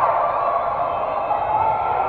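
Steady hubbub of many indistinct voices echoing in a large sports hall.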